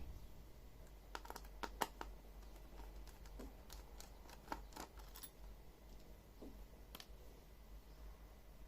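Faint, scattered light clicks and taps from a Lenovo ThinkPad E580 laptop's plastic parts being handled, a small cluster of them about a second in, more near the middle, and one more near the end.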